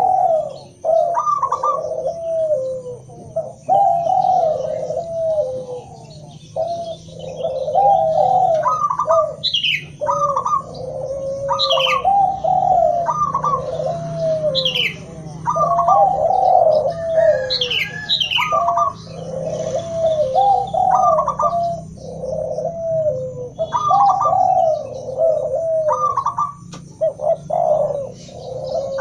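Doves cooing over and over in overlapping phrases: a mix of zebra dove, spotted dove and Barbary dove calls. A few high, quickly falling chirps come in about the middle.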